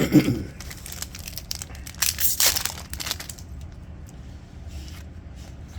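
Crinkling and rustling of a trading-card pack wrapper and cards being handled, busiest in the first three seconds and then fading to light rustles.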